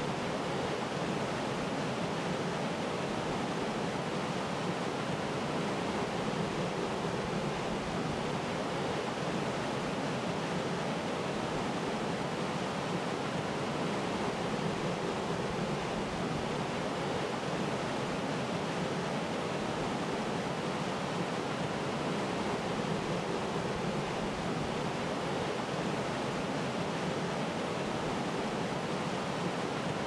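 Waterfall rushing steadily: a continuous, even noise of falling water with no breaks or changes.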